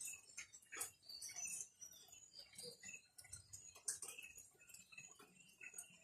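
Faint outdoor ambience: scattered, irregular ticks and short high chirps.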